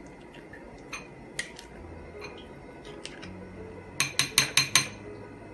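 A spoon clinking against a mixing bowl while malai is spooned in: a few scattered light clinks, then about five quick, louder taps near the end.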